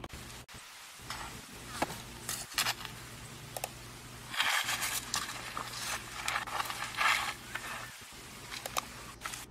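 A camel stamping on and crushing a pineapple on dry dirt: scattered crunches and scrapes, with longer noisy stretches of trampling about halfway through, played back from a video through computer speakers over a low steady hum.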